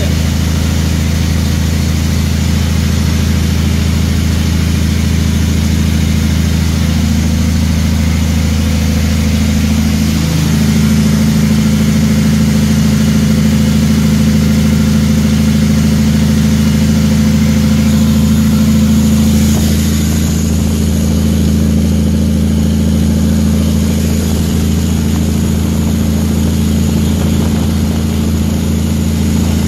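Heavy truck's diesel engine running steadily under way, heard from inside the cab. The engine note shifts about ten seconds in and changes again near twenty seconds.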